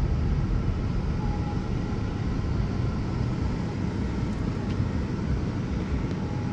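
Steady low rumble of a car's engine and tyres heard inside the cabin while the car drives slowly.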